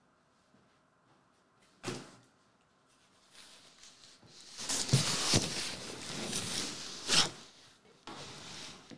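A cardboard box being handled and moved about on a table: one short knock about two seconds in, then a few seconds of scraping and rustling with a sharper knock near the end.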